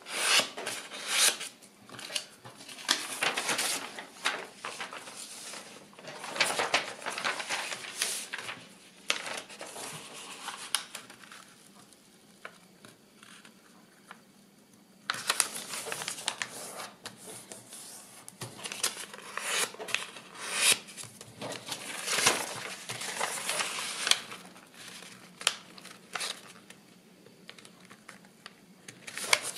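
Kraft paper rustling and crinkling as it is folded and pressed along its creases by hand, with a quieter stretch a little before the middle.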